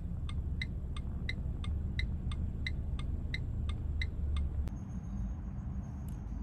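Car turn-signal indicator ticking at about three ticks a second over the low rumble of the car in the cabin. The ticking stops, and the rumble drops, about four and a half seconds in.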